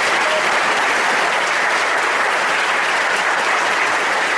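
Congregation applauding: a steady, sustained round of clapping from many hands.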